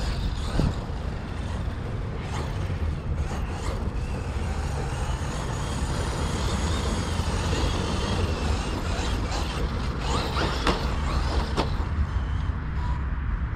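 Electric motor and drivetrain whine of a Traxxas Maxx RC monster truck on a 6S battery, rising and falling in pitch as it speeds up and slows across the grass. Heavy wind rumble on the microphone lies under it.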